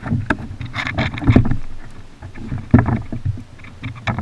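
Irregular knocks, thuds and rustling from hands and gear on a kayak while a freshly caught plaice is unhooked. Two heavier thuds come about a second and a half in and near three seconds.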